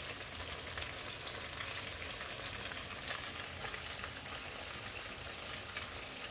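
Pieces of seasoned capitaine fish frying in oil in a non-stick pan: a steady sizzle with many small crackles.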